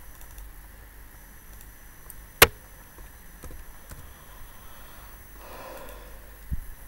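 Computer mouse and keyboard clicks over low room hiss: one sharp, loud click about two and a half seconds in, then a few faint clicks, a soft rustle and a low thump near the end.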